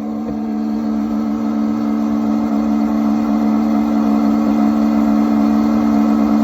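Chinese 12 V 5 kW diesel parking heater running at high blower speed, giving a steady droning hum that slowly grows louder. The noise is the sign of its failing blower fan motor.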